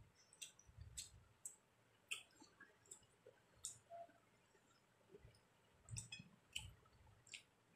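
Faint, close-miked eating sounds from chewing a mouthful of rice and fried hilsa: about ten sharp, wet mouth clicks and smacks at irregular intervals, some with soft low thumps.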